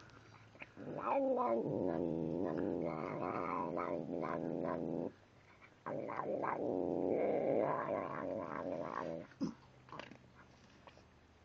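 A cat growling and moaning with its face in a bowl of dry kibble as it eats. There are two long, drawn-out growls of several seconds each and a brief one about nine seconds in.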